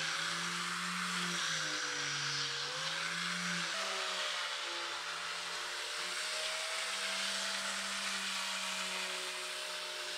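Handheld angle grinder fitted with a sanding disc, running continuously as it sands the curved wooden frame of a moon door. Its motor whine dips and recovers in pitch as it is pressed into the wood, then shifts up about four seconds in and runs steadier.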